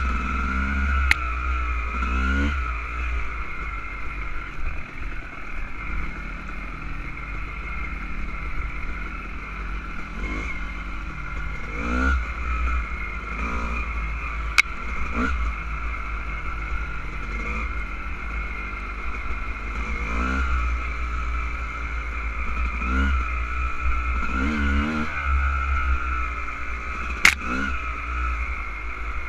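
Dirt bike engine revving up and down again and again while riding, heard through a helmet-mounted camera with heavy low wind rumble. Three sharp clicks stand out, about a second in, midway and near the end.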